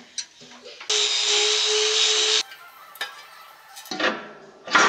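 A power tool runs for about a second and a half with a steady whine under a loud hiss, starting and stopping abruptly. Near the end there is a shorter burst of tool noise.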